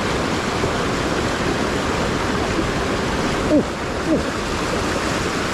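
Shallow rocky stream rushing steadily over rapids. Two short falling tones cut through it about three and a half and four seconds in.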